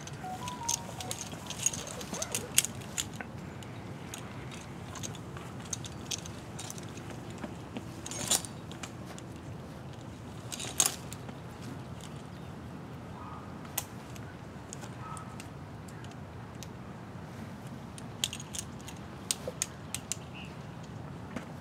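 Metal climbing hardware on a tree climber's harness (carabiners and rope devices) clinking and jangling as the rope is handled: scattered sharp clinks, busiest in the first few seconds and near the end, over a steady low background rumble.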